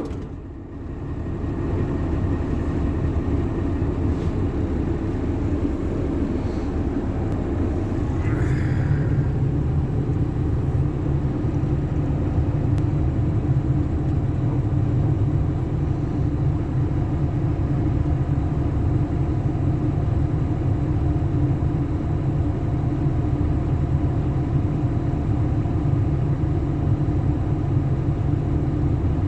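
Zoomlion excavator's diesel engine running steadily under working load. About eight seconds in, the engine note grows heavier, with a brief higher-pitched sound at that moment.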